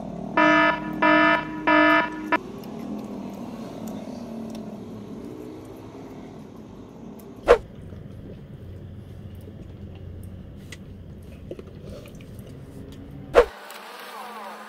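Three loud buzzer beeps in quick succession, each about half a second long: a warning alarm sound effect signalling that the eater is nearly too full to go on. Later, two sharp clicks over a faint background.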